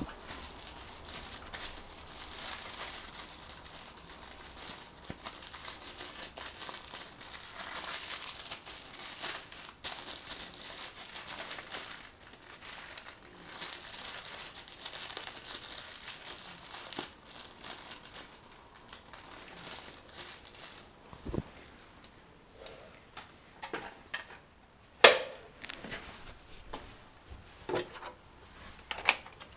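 Rustling, crinkling noise that swells and fades for about twenty seconds, then a handful of sharp knocks and clicks near the end, the loudest about three-quarters of the way through, as the camera is handled and picked up.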